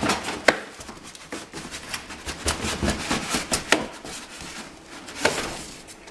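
Cardboard box and packing being handled as a computer case is pulled out of it: rustling and scraping with a handful of sharp knocks spread through.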